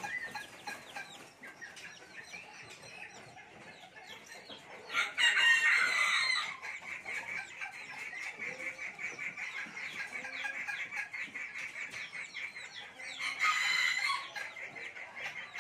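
Serama bantam roosters crowing twice, a short crow about five seconds in and another near the end, with softer clucking and a steady run of quick high chirps between.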